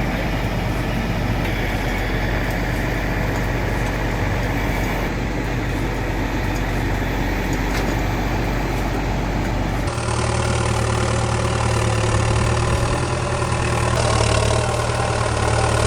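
Heavy machine engine running steadily. About ten seconds in the sound changes abruptly to a deeper, heavier engine note.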